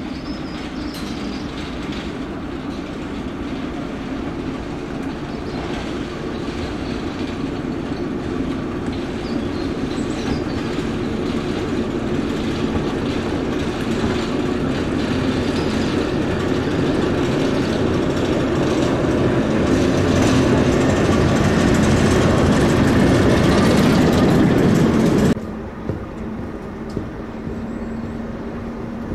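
Diesel shunting locomotive's English Electric six-cylinder engine running as the shunter moves along the track. It grows steadily louder over about 25 seconds, then cuts off suddenly to a quieter, more distant engine sound.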